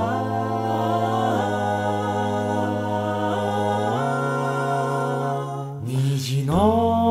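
A five-voice male a cappella group singing held chords over a steady bass line, the harmony shifting about a second in and again at about four seconds. Near the end the chord breaks off with a brief hiss and a new phrase rises in.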